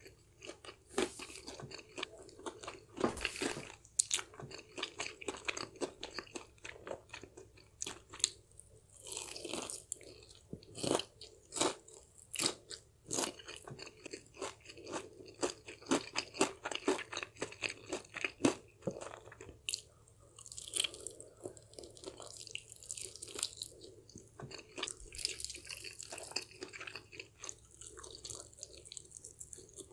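A person biting and chewing crispy fried chicken, with irregular crackling crunches of the coated skin and wet chewing throughout.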